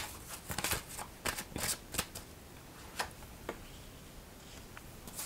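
A deck of oracle cards being shuffled and flicked in the hands: a quick run of short snaps and flicks over the first two seconds. A few single clicks follow as a card is drawn and laid down, then it goes quiet.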